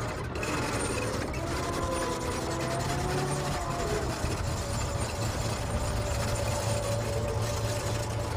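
A heavy vehicle's engine running steadily, with a low hum and a wavering whine over it.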